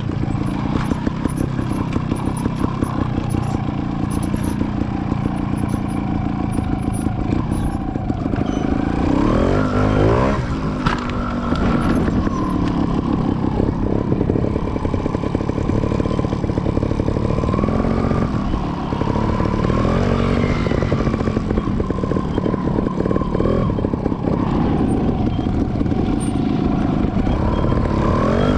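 Trials motorcycle engine running at low speed over rough dirt, the revs rising and falling several times as the throttle is blipped, with the sharpest rises about nine seconds in and near the end.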